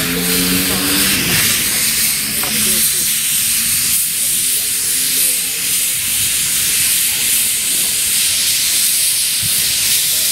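Small narrow-gauge steam tank locomotive moving slowly, its open cylinder drain cocks giving a steady hiss of escaping steam. A low humming tone fades out during the first couple of seconds.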